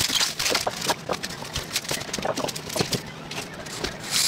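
Irregular knocking, clicking and scraping as gloved hands pull and work at the frame and trim around a built-in RV refrigerator, with a few short squeaks.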